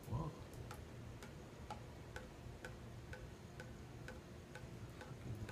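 Faint, even ticking, a little over two ticks a second, over a low steady background rumble.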